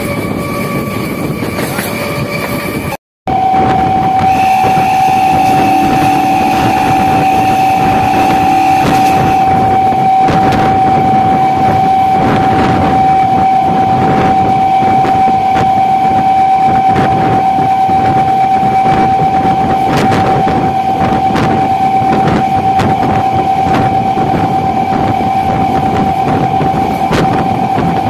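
MEMU electric train running at speed: a steady rush and rumble of the moving train. After a brief drop-out about three seconds in, a constant high whine holds over the noise.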